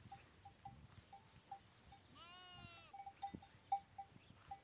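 A desi sheep bleats once, a wavering call lasting under a second, about halfway in. Short, high single-pitch pings repeat throughout, the loudest near the end.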